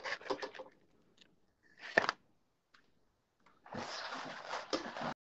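Rustling and handling noises, with a sharp click about two seconds in and a longer stretch of rustling near the end that cuts off suddenly.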